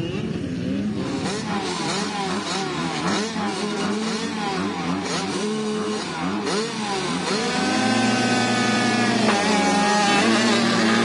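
Several youth motocross dirt bike engines revving up and down together at the starting gate. About three-quarters of the way through they climb and hold at high revs as the bikes launch off the line.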